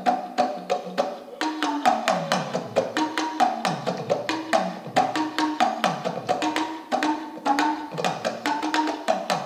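Talking drum played solo with a stick: a fast run of sharp strokes, the drum's pitch repeatedly sliding down and back up as the player squeezes it under his arm.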